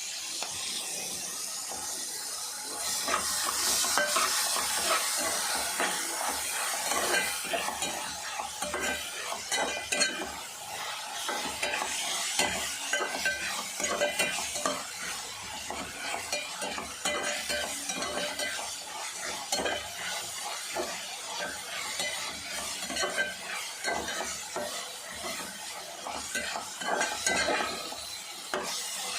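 Onions and green chillies sizzling in hot oil with ginger-garlic paste as they are stirred, the utensil scraping and clicking against the pan over and over. The sizzle grows louder about three seconds in.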